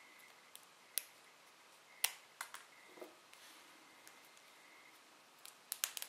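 Small curved scissors snipping a homemade flour nail extension: sharp clicks, a few spaced out and then a quick run of snips near the end.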